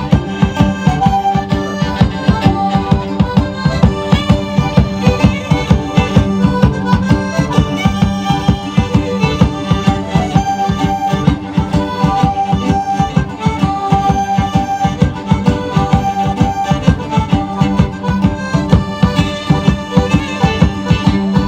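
A band of accordions and other squeezeboxes playing a traditional folk tune over a low held drone, with a steady beat.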